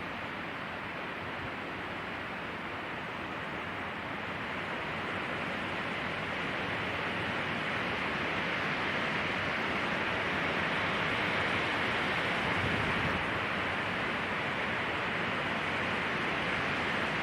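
Wind blowing through pine trees, a steady rushing that swells gradually over the first half and then holds. The recording is edited to pan alternately left and right for bilateral stimulation.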